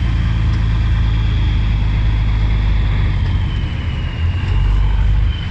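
Truck engine and road noise heard inside the cab while driving: a loud, steady low rumble with a thin high whine over it that sags a little about three seconds in. The low rumble swells briefly near the end.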